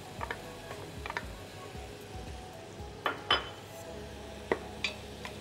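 Utensils knocking and scraping against a stainless steel cooking pot while meat and onion are worked in it: a handful of separate clinks, the loudest pair about three seconds in.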